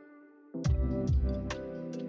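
Background music: soft held notes, then about half a second in an electronic beat comes in with heavy bass and regular sharp percussion hits.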